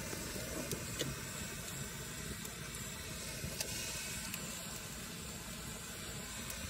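Wood fire blazing under a cast-iron kazan on a grill grate: a steady hiss of flame with a few sharp crackles and pops from the burning wood.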